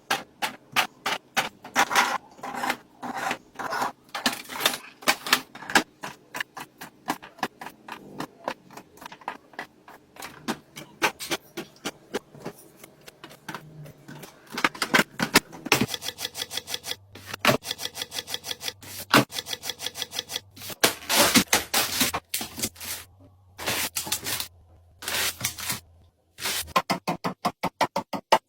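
Items being handled and set into place during restocking: a quick run of clicks and taps, with bursts of packaging crinkling and rustling from about halfway through.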